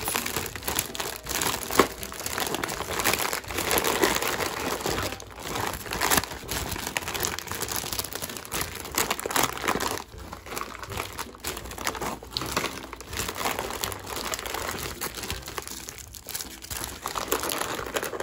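Plastic and foil snack packets and a glossy plastic bag crinkling and rustling as hands rummage through them and pull packets out, uneven and a little quieter in the second half.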